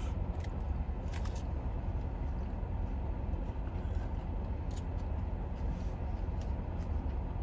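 Steady low rumble inside a parked car's cabin, with a few faint clicks of chewing.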